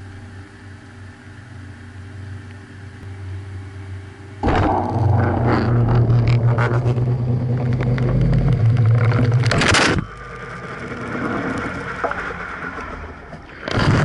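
Washing machine running, heard from inside the water-filled tub: a steady low motor hum with water churning. About four seconds in it jumps much louder and busier, with a strong low hum, as the spin cycle runs, then drops back about ten seconds in.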